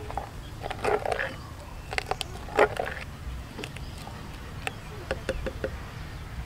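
A spoon stirring a thin sauce in a bowl: irregular clicks and scrapes of the spoon against the bowl, with a few louder wet stirring strokes.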